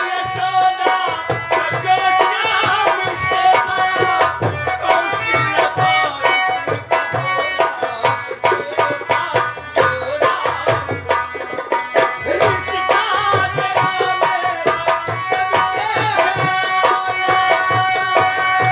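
Instrumental folk-theatre music: hand drums played in a fast, steady rhythm under a wavering melody with held notes.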